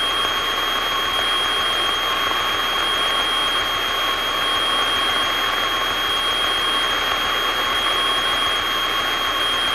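Steady in-flight aircraft cabin noise: an even rushing sound of engine and airflow with a thin, steady high whine running through it.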